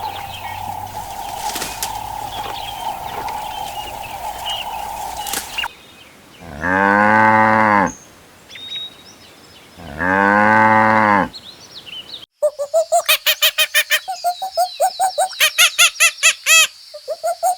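A cow mooing twice, each moo one long low call of about a second and a half, after a steady hum. Then comes a fast run of short, high-pitched chirps, about five a second.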